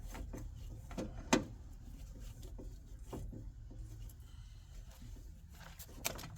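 Scattered light clicks and knocks of car-door parts being handled, the sharpest about a second and a half in, over a steady low hum.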